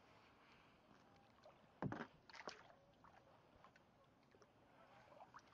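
Faint water sounds from a kayak on the water, with a sharp knock and a few small splashes about two seconds in.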